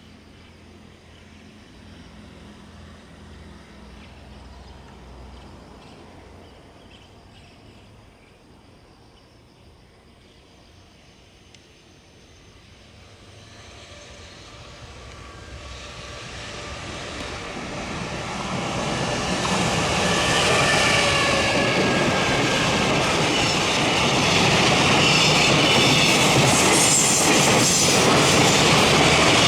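Freight train approaching on electrified main-line track. A low rumble grows from about twelve seconds in to a loud, steady rush of wheels on rail, and near the end the regular clicking of wheels over rail joints sets in.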